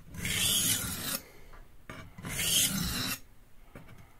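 Santoku blade scraping across a wet sharpening stone in two long strokes, each about a second, with a gritty rasp. He is grinding the fatter section of the bevel left by reprofiling.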